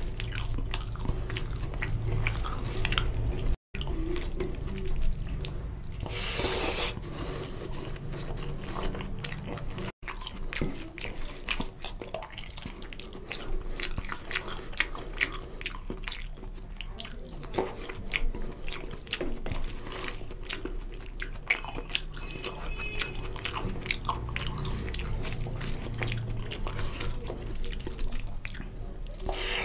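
Close-up wet chewing and mouth smacks of someone eating rice and chicken curry, with fingers mixing and squishing rice in gravy on a steel plate: a steady run of small clicks and squelches. The sound cuts out briefly twice.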